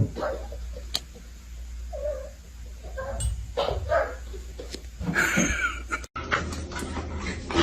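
A pet animal making short calls, one of them falling in pitch about five seconds in. A cut about six seconds in brings a run of short, sharp noises.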